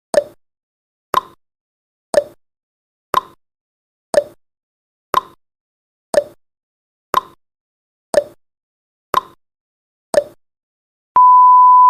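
Countdown timer sound effect: a sharp tick once a second, eleven ticks, then a steady beep tone starts about eleven seconds in as the timer reaches zero.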